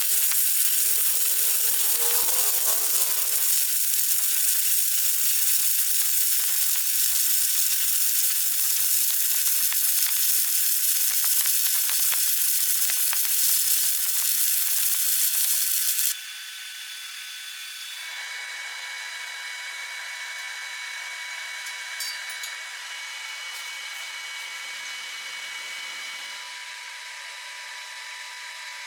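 Electric arc welding: the steady frying hiss of a stick-welding arc, which stops suddenly about sixteen seconds in. A quieter steady whine follows, made of several held tones.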